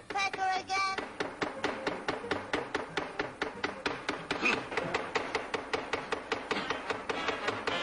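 Cartoon woodpecker pecking at wood: a fast, even run of sharp knocks, about six a second, after a few short pitched notes at the start.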